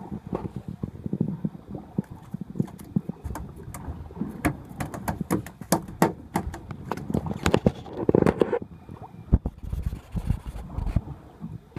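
Irregular knocks, taps and rustling from handling a caught isaki and fishing line on a boat deck, over a low rumble.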